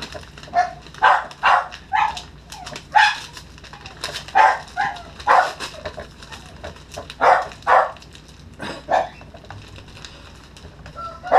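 Dogs barking repeatedly: about a dozen short barks coming in irregular bunches.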